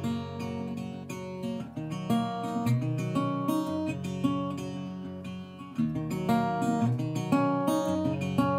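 Background music of a strummed acoustic guitar playing chords.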